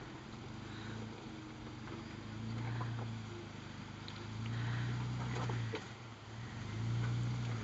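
A Jeep's engine crawling over rocks, heard from some distance: a steady low rumble that is throttled up in three short swells as the Jeep works its wheels up the ledge.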